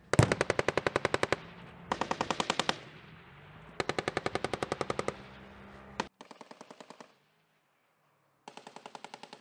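Machine-gun fire in bursts of one to one and a half seconds, about eleven rounds a second. Three loud bursts come in the first five seconds, then a single shot, then quieter bursts in the second half.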